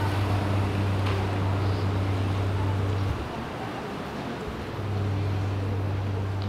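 Steady low engine hum over outdoor background noise. The hum drops away about three seconds in and comes back about a second and a half later.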